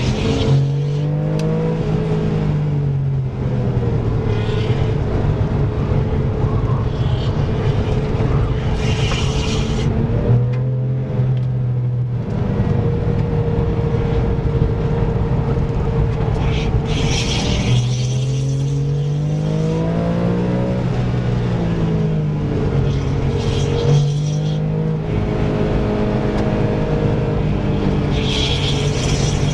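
Car engine pulling hard at high revs, heard from inside the cabin on a race track. Its pitch climbs and then drops several times as the car accelerates and lifts off for corners, with a steady stretch in the middle.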